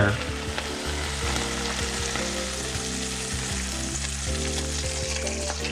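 Oysters and freshly poured tapioca-starch and sweet-potato-flour batter sizzling in hot oil in a frying pan: a steady frying hiss.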